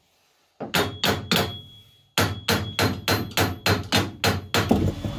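Hammer blows on a two-jaw puller clamped on a sailboat's propeller-shaft coupling, metal on metal with a faint ring, struck to shock the seized coupling loose from the shaft. Three blows come about a second in, then after a short pause a steady run of about three a second.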